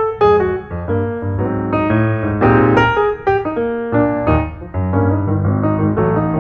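Background piano music: a steady flow of single notes and chords.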